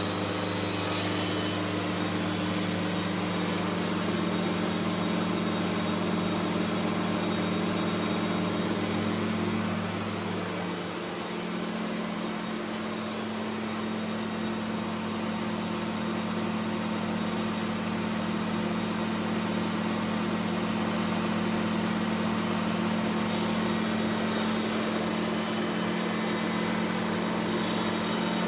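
An engine running steadily; about ten seconds in its note changes, as if its speed or load shifts, then it runs on evenly.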